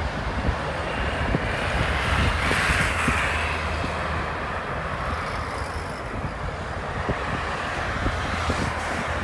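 Jet airliner engines running as a steady rumble and rushing hiss that swells about two to three seconds in, with wind buffeting the microphone.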